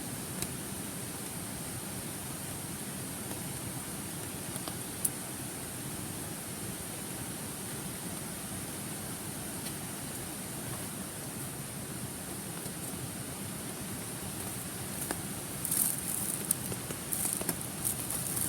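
Steady rushing of a shallow stream, with a few sharp pops from a wood campfire and a burst of crackling and rustling near the end.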